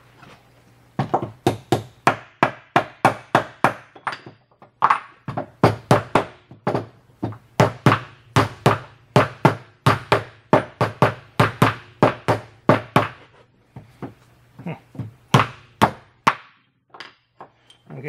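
Hammer blows on a homemade metal crimping die, crimping a lug onto a heavy battery cable. The sharp strikes come at about three a second with a short pause near 4 s, then thin out to a few single blows before stopping.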